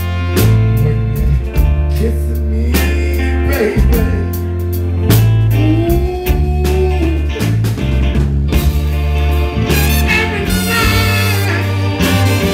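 Live soul band playing, with a strong bass line under a male singer's voice that rises and falls.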